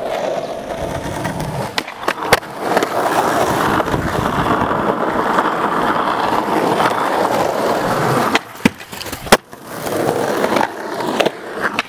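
Skateboard wheels rolling over rough concrete, a steady grinding roll for about eight seconds. Near the end the roll breaks off for a couple of sharp clacks of the board on the concrete, then rolls again briefly.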